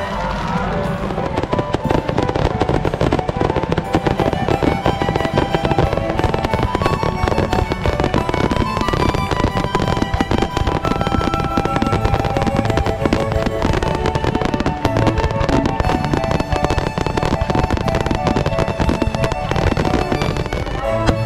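Aerial fireworks display: a dense, continuous crackle and bang of bursting shells, with music playing underneath.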